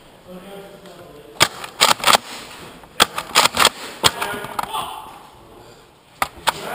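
Nerf foam-dart skirmish: an irregular scatter of sharp clacks from blasters firing and darts striking nearby hard surfaces, about a dozen in all, bunched in two flurries and then two more near the end, over distant shouting.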